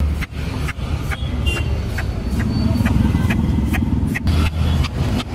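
Long knife chopping through pineapple onto a wooden cutting board: a string of short sharp knocks about twice a second, over a steady low engine rumble.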